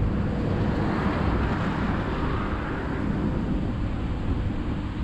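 Van driving slowly along a dirt road, heard from inside the cab: a steady low engine and tyre rumble.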